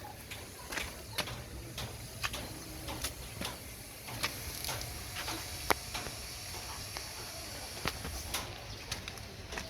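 A litter of puppies suckling at their mother, making irregular small wet clicks and smacks over a steady hiss.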